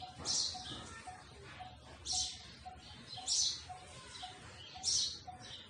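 Birds chirping: short high chirps that fall in pitch, about one every second or so, over a soft short note repeated about three times a second.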